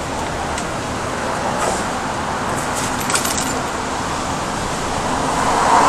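Steady city road traffic, with a short cluster of light metallic clicks and jingling about three seconds in; a vehicle passing grows louder near the end.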